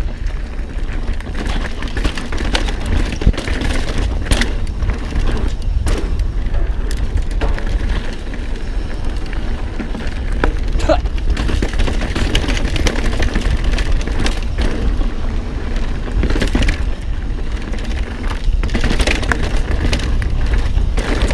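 Mountain bike riding fast down dry, dusty singletrack: wind rumbling on the camera microphone over tyre noise on dirt, with frequent sharp rattles and knocks from the bike over rough ground.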